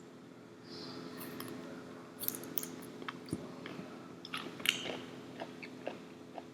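Close-miked eating: a person chewing, with a cluster of sharp, crisp crunches and wet mouth clicks in the middle.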